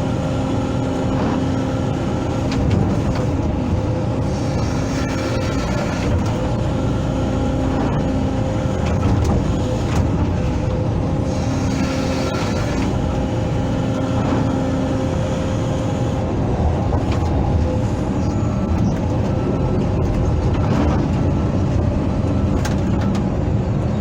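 Hydraulic excavator's diesel engine running steadily while digging out a ditch, with a humming tone that comes and goes every few seconds as the hydraulics work.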